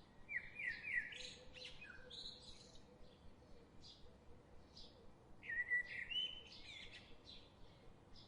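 Small birds chirping and singing: two louder bouts of quick rising and falling chirps, about a second in and again past the middle, over short chirps repeating throughout.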